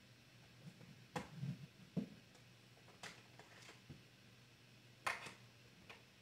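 Small desk objects being handled: a few faint scattered clicks and light knocks, the sharpest about a second, two seconds and five seconds in, as craft supplies are searched through for a marker.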